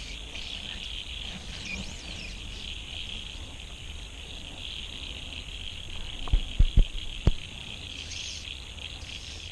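Steady high chirring of insects, with small birds chirping over it. About six to seven seconds in come a few short, dull thumps close to the microphone.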